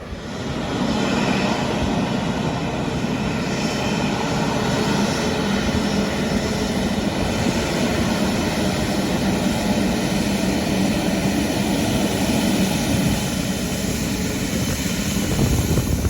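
Airbus A350-900's Rolls-Royce Trent XWB turbofan engines running at high power: a steady, loud jet noise with a strong low hum and faint steady whining tones, cutting in suddenly at the start.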